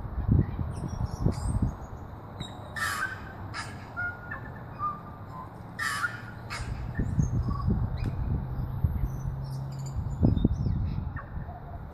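Tui singing: short clear notes and clicks mixed with two harsh wheezing rasps about three seconds apart, over a low rumble.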